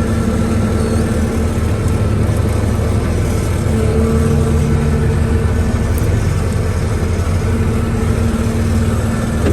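Bobcat S550 skid steer's diesel engine running steadily, heard from the open cab, with its note shifting briefly about four seconds in.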